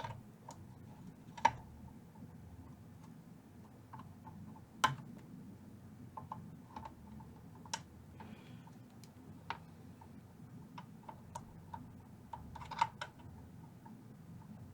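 Scattered small clicks and taps of hand tools working an old wire loose from a solder terminal inside a vintage tube amp chassis. The sharpest clicks come about a second and a half in and about five seconds in, with a cluster near the end, over a faint steady hum.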